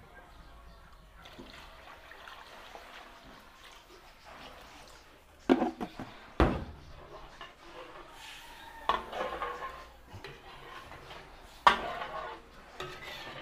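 Chicken broth poured into a cooking pot, a steady splashing rush of liquid, with a few sharp clanks of metal cookware about halfway through and near the end.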